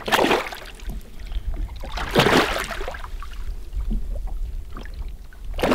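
Lake water sloshing and splashing in a landing net alongside the boat as a muskie is handled in it, in two short bursts about two seconds apart.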